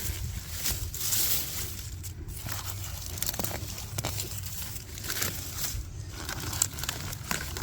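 Crinkling and rustling of onion plants and their dry leaves being handled and pulled, with many small sharp crackles.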